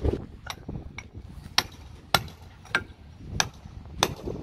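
Hand hammer striking brick at the base of a wall, seven sharp blows a little over half a second apart, each with a short ringing click, chipping open the brickwork to reach a bee colony in the wall cavity.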